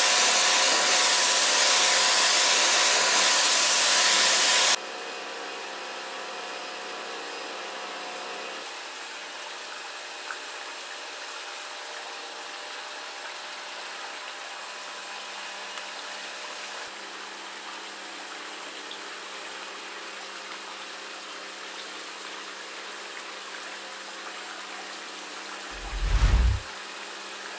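Kärcher high-pressure washer spraying, a loud steady hiss with a motor whine, cutting off suddenly about five seconds in. A much quieter steady hum and hiss follows, with a heavy low thump near the end.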